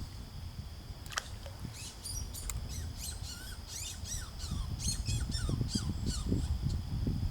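A bird calling in a quick run of short, falling chirps over a low, steady rumble.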